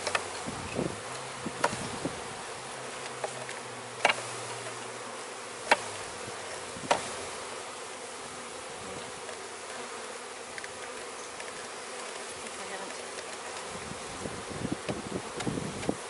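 A mass of honeybees buzzing steadily, stirred up as they are dumped out of their package box into the hive. A few sharp knocks sound in the first seven seconds.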